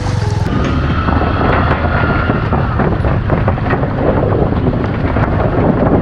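A motorcycle rolls over the loose wooden planks of a steel truss bridge deck, the boards clattering in a rapid, irregular run under the wheels. Heavy wind buffets the microphone throughout.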